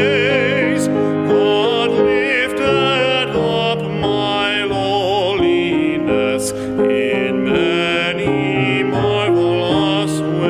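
A man singing a hymn solo with a wide vibrato, accompanied by piano chords.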